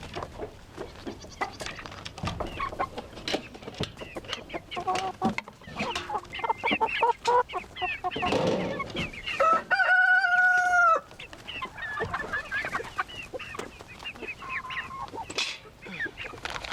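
A flock of chickens clucking and chattering, with one long, steady call about ten seconds in, the loudest sound here.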